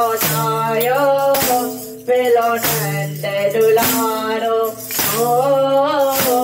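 A woman singing a Gujarati devotional song to Krishna, accompanied by wooden kartal clappers with jingles and small hand cymbals (manjira) struck in a steady rhythm.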